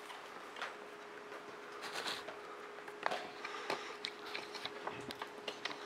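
Faint scattered clicks, taps and scrapes of hard plastic as an iMac G5's white plastic front bezel is handled and lifted away, over a faint steady hum.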